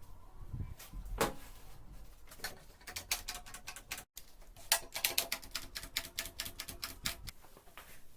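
Irregular sharp clicks and taps of hard objects, sparse at first, then in quick clattering runs. There is a brief dropout about four seconds in.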